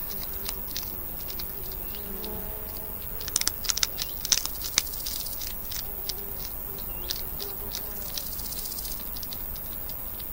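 Baby hedgehogs chewing and crunching hard food: irregular quick clicks and crackles, with a dense flurry a little past the middle.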